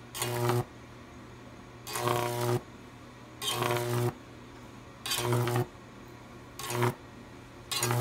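High-voltage arc of a Jacob's ladder powered by a microwave-oven transformer, striking six times in bursts of about half a second, each a loud buzzing crackle with a strong mains hum, then going out.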